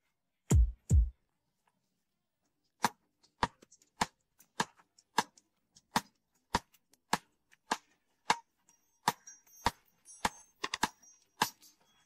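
Sparse percussion beat: two heavy low thumps about half a second in, then sharp clicks in a steady rhythm of roughly one every 0.6 seconds. Faint high ringing tones join near the end.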